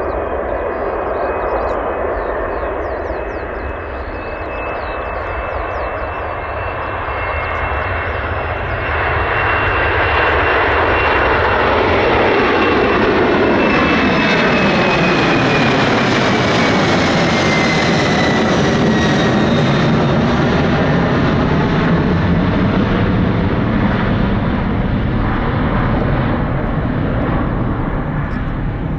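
Airbus Beluga A300-600ST taking off, its two General Electric CF6-80C2 turbofans at takeoff thrust. The sound grows louder about nine seconds in as the aircraft climbs past close by. A high engine whine drops in pitch as it goes by and climbs away.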